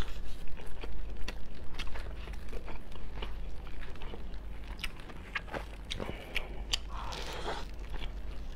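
Close-miked eating sounds of brown crab: chewing and crunching of the meat, with short cracks and crackles as the shell and meat are pulled apart by hand. Loudest in the first couple of seconds, then quieter and more scattered.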